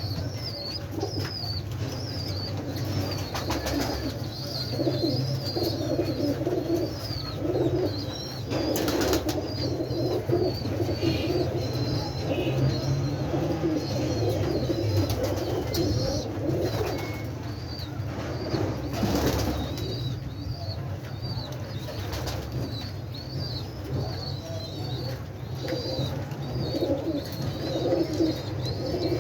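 Pigeons cooing continuously, several at once, with higher chirps over them and a few brief bursts of wing flapping, about 9 and 19 seconds in.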